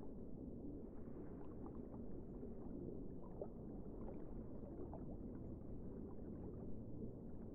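Faint underwater ambience: a steady low rumble with scattered soft clicks and a few brief squeaks.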